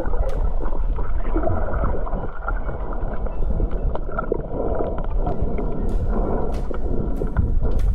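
Muffled underwater sound through a camera in a waterproof housing: a steady rumbling, gurgling water noise with scattered sharp clicks.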